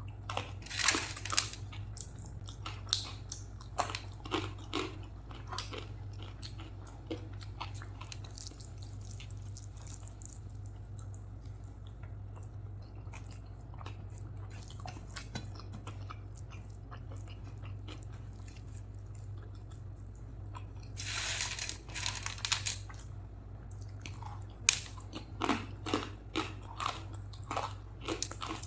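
Close-miked eating sounds of a person chewing a meal of rice and curry: wet smacks and clicks from the mouth, with a louder crunchy stretch a little past two-thirds of the way in. A steady low hum runs underneath.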